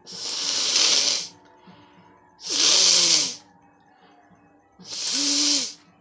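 A woman blowing hard out through her nose three times with one nostril pressed shut, each blast a breathy rush lasting about a second. The second and third blasts end with a short voiced grunt.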